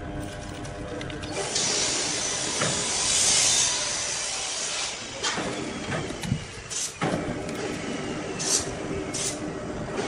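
Sawmill machinery running with a steady hum while a large log is moved in crane slings. A loud hiss starts about one and a half seconds in and lasts a few seconds, and several short hissing bursts follow near the end.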